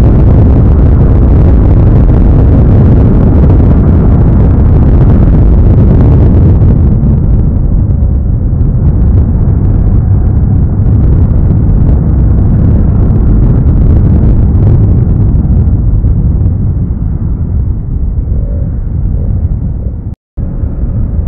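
Heavy wind noise on a camera mounted on a Yamaha R15S sportbike riding at speed, mixed with the bike's engine running. The higher part of the noise fades after about seven seconds, and the sound cuts out for a moment near the end.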